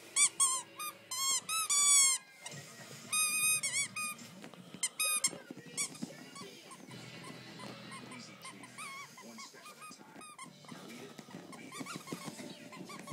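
Rubber squeaky toy squeaking over and over, each squeak a short rise and fall in pitch. The squeaks come in loud quick runs in the first few seconds, then go on more faintly.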